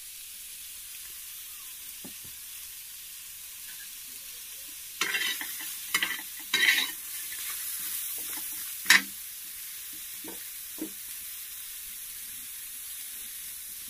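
Chopped onions sizzling steadily in a hot pan, with a steel slotted spoon scraping and clattering against the pan several times around the middle as they are stirred.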